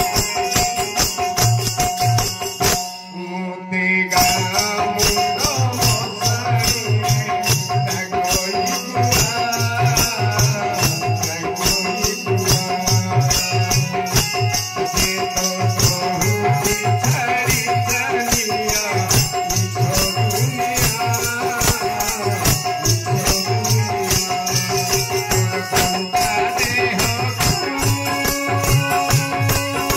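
Odia devotional kirtan: a man sings a bhajan over a steady keyboard drone, with a hand drum and jingling hand percussion keeping a fast, even beat. The music thins out briefly about three seconds in, then carries on.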